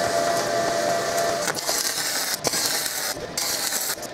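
Flux-cored (dual shield) wire-feed welding arc burning at about 250 amps: a steady crackling hiss with a few short breaks in the second half.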